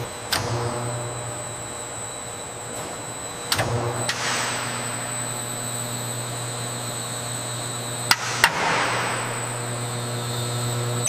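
Food-processing machinery running with a steady hum. Sharp clacks come about a third of a second in, near 3.5 seconds, and twice close together around 8 seconds, with a hiss following.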